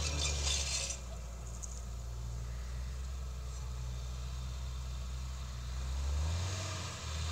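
Distant New Holland TM175 tractor's diesel engine running under load while it pulls a cultivator, heard as a steady low drone. Its note shifts about six seconds in as the tractor turns at the end of the field.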